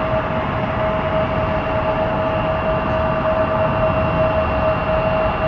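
Jet airliner engines running: a steady whine over a broad rumble.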